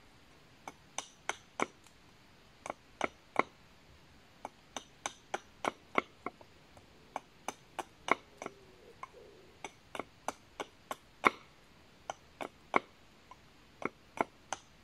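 Small axe chopping down along a hazel stick on a wooden chopping block: a string of sharp knocks, a few a second, in runs with short pauses. The strokes take the edges off the stick to round it into a peg.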